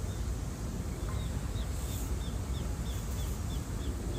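A small bird calling a quick series of short, high, down-slurred notes, about three a second, starting about a second in, over a steady low background rumble.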